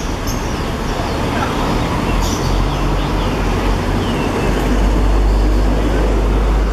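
Steady low rumble of a moving road vehicle, growing a little louder about four to five seconds in.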